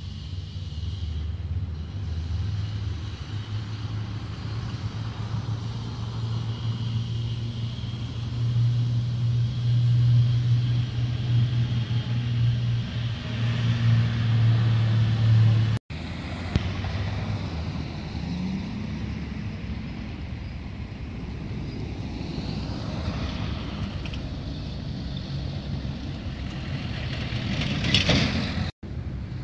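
Road traffic: a steady low vehicle engine hum, loudest midway, with tyre and road noise. A vehicle passes close by near the end with a loud rushing swell. The sound drops out for an instant twice.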